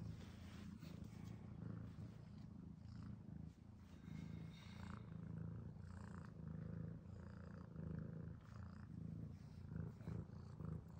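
A domestic cat purring close up, a steady low pulsing rumble, with soft rustling over it.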